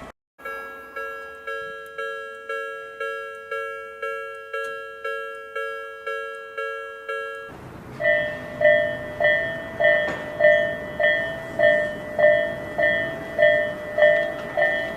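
Japanese railway level-crossing warning bells ringing in a steady repeated ding. First an Odakyu Electric Railway crossing bell rings about twice a second. After a cut at about seven and a half seconds, a Tobu Railway crossing bell follows with a higher-pitched, slightly slower ding over steady outdoor background noise.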